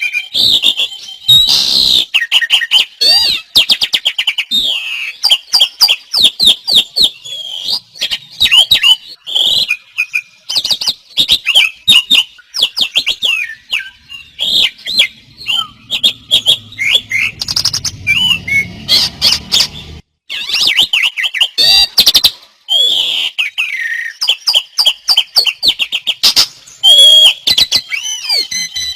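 Several songbirds singing at full voice at once, overlapping with no pauses between them: a dense run of rapid chirps, trills and sweeping whistles.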